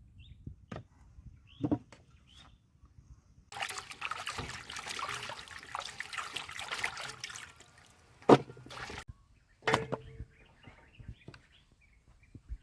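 Liquid being poured for about four seconds, a dense splashing hiss, with sharp knocks of kitchenware before and after, the loudest one about eight seconds in.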